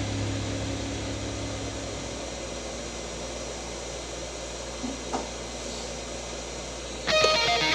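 Steady whirring of a small fan or blower, with two faint clicks around the middle, as background music fades out; guitar music cuts in near the end.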